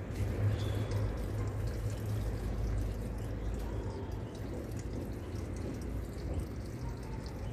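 Water pouring from a plastic watering can's rose spout onto the soil of a freshly potted plant, a steady splashing trickle of deep watering, with a low steady rumble underneath.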